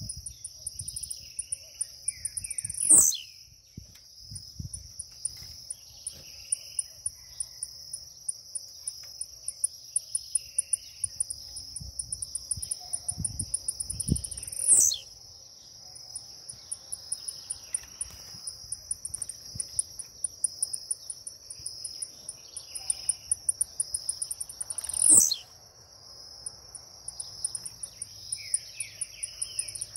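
Blue-black grassquit (tiziu) giving its short, sharp song three times, each a quick falling note, about ten seconds apart. Steady high-pitched insect chirring continues underneath.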